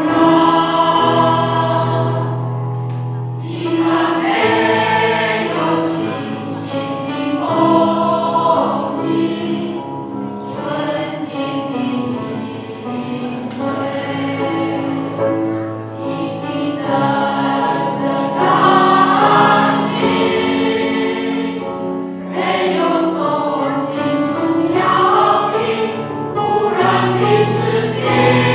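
A choir singing a slow song in held notes, with a low sustained note underneath near the start and again near the end.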